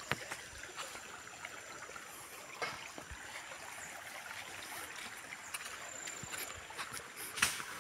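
Faint, steady trickle of stream water, with a couple of soft knocks, the louder one near the end.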